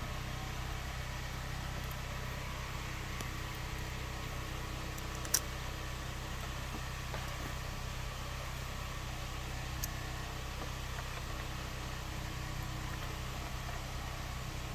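An engine running steadily at idle, a low even hum, with one sharp click about five seconds in.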